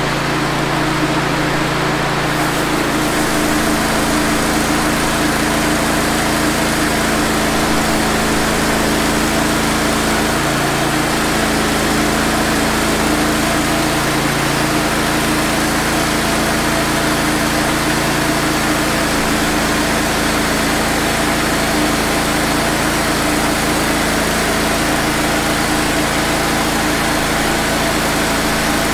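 Woodmizer LT15 band sawmill running steadily, its engine under load as the band blade cuts through a pine log, described as cutting like butter.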